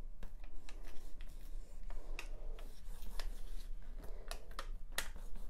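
Clear plastic carrier sheet of a ReDesign with Prima rub-on transfer crinkling and crackling as it is pressed, rubbed down with fingertips and peeled back from a wooden cutting board, with many small scattered clicks.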